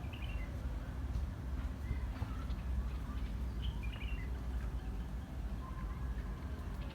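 A few faint bird chirps over a steady low rumble.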